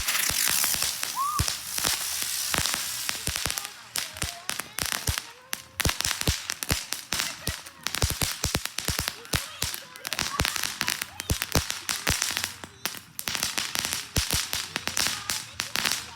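Small novelty fireworks going off: a spraying hiss for the first few seconds, with rapid, irregular crackling pops all the way through.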